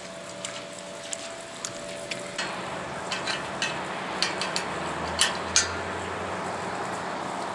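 Steady hissing noise that grows louder about two and a half seconds in, with scattered light clicks and taps.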